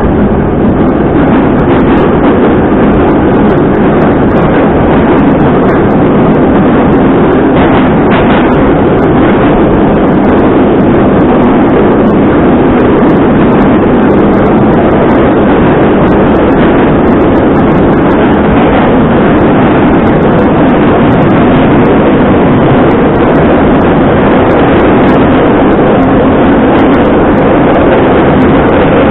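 Moscow Metro train running at speed through a tunnel, heard from inside the car: a loud, steady noise of wheels on rails and running gear.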